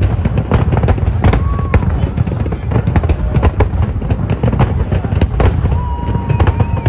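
Large aerial fireworks display going off in a rapid, continuous barrage of bangs and crackles, many shells bursting in quick succession.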